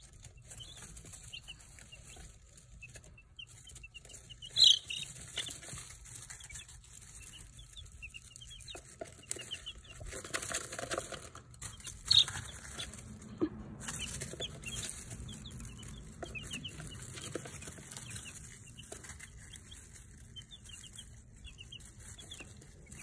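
Brood of baby chicks peeping, a steady stream of short high chirps, with two much louder cheeps about five and twelve seconds in.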